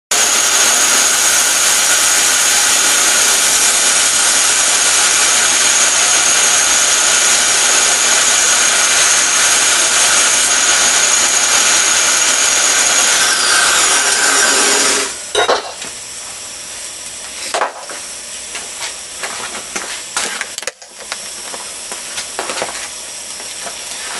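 Home-made 2x72 belt grinder, driven by a salvaged 4 hp air-compressor motor, running loud with a steady hiss and a high whine from the belt. About 13 seconds in, the whine falls in pitch as the machine is switched off and spins down. After that it is much quieter, with a few knocks.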